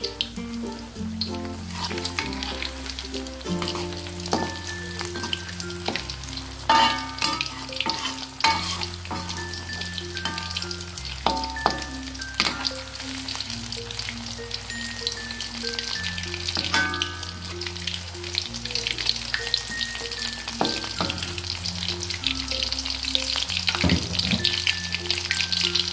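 Flour-battered shrimp deep-frying in hot oil in a wok, a steady bubbling sizzle. A few sharp knocks of a spatula against the wok as the shrimp are turned. Background music plays over it.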